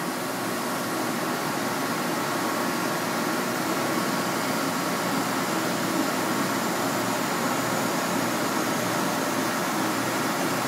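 Hydraulic press brake's pump running at idle: a steady hum and hiss with no bending stroke.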